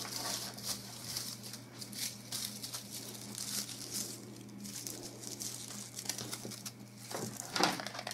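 Dry raffia bows rustling and crinkling as they are handled, with scattered light clicks and taps, a little louder near the end.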